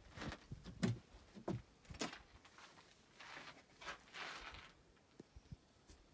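Faint handling noise: a few soft clicks and knocks in the first two seconds, then light rustling.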